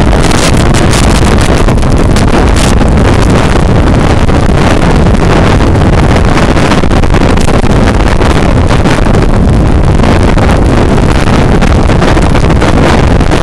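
Loud, steady rush of strong wind buffeting the microphone.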